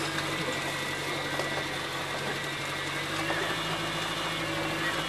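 Jeep's engine running steadily at low speed, heard from inside the cabin, with small clicks and rattles as it drives over a rough gravel track.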